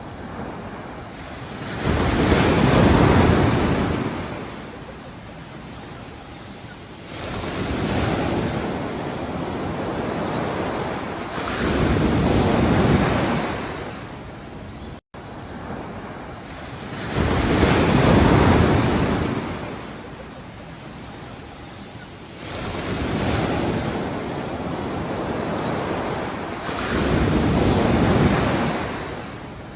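Ocean waves breaking and washing up, in about six swells that each build and fade over a few seconds. The sound cuts out completely for a moment about halfway through.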